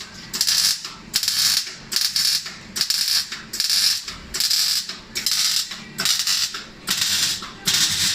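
Ratchet wrench being worked back and forth, a burst of ratcheting clicks with each stroke at a steady pace of a little over one stroke a second.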